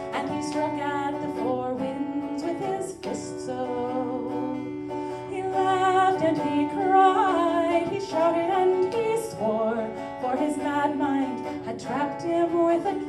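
Acoustic folk music played live: guitar accompaniment with a wavering melody line above it.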